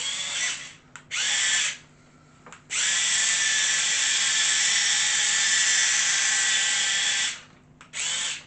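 The small electric motors and gears of a radio-controlled Optimus Prime toy robot whirring in bursts: two short bursts, then a long steady run of about four seconds, then another short burst near the end.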